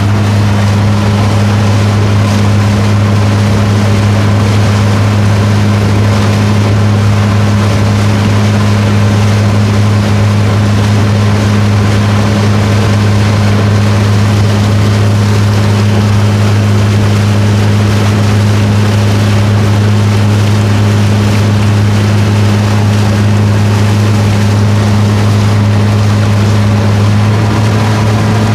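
Motorboat engine running at a steady, unchanging speed, a loud low drone, under a constant rushing hiss of wind and water while the boat is under way.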